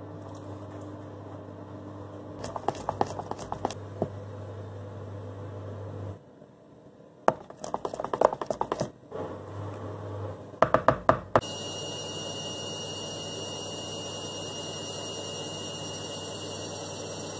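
A utensil knocks and scrapes against a plastic mixing bowl as pancake batter is stirred, in quick runs of clicks over a steady low hum. From a little past the middle, a washing machine runs with a steady hum and a high whine.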